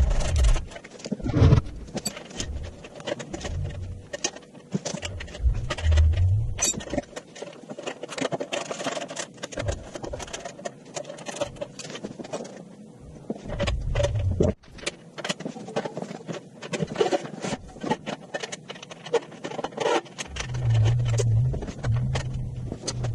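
Sped-up workshop assembly noise: a rapid, irregular clatter of knocks, clicks and scrapes from metal parts and tools being handled, with stretches of low rumble.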